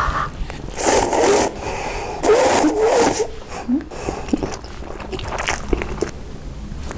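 Close-miked eating sounds, with two loud bursts of biting and crunching about a second in and midway, and smaller mouth noises after.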